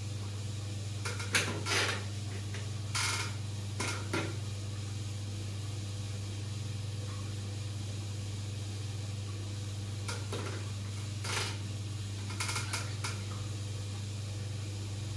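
A steady low hum with short clinks and knocks over it, a few in the first four seconds and a few more after about ten seconds.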